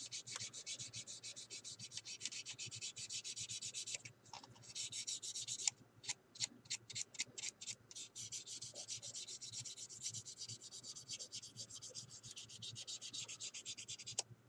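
Fine 1200-grit sanding stick rubbed over a styrene model car body in quick short strokes, about five a second: a faint dry scratching, with brief pauses about four and six seconds in.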